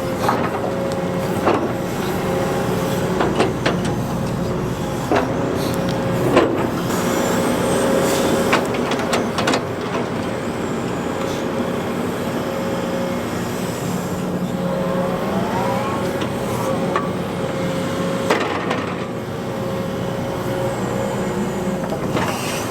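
John Deere excavator running, with a steady engine-and-hydraulic whine. Scattered knocks and clanks come from the machine working, and a brief rising whine comes about fifteen seconds in.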